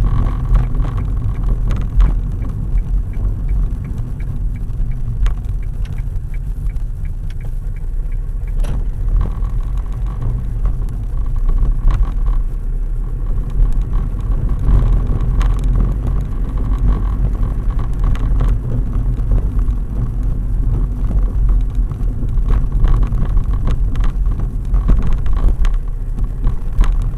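Car driving at road speed, heard from inside the cabin: a steady rumble of engine and tyres. A faint regular ticking comes in for a few seconds near the start.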